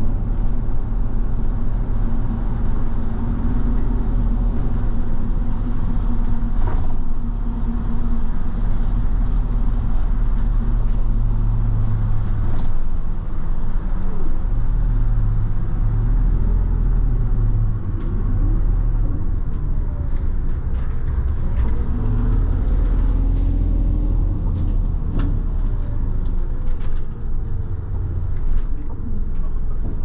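Bus engine running and road noise heard inside the cabin while driving, the engine pitch rising and falling a few times. A few short clicks or rattles come in the second half.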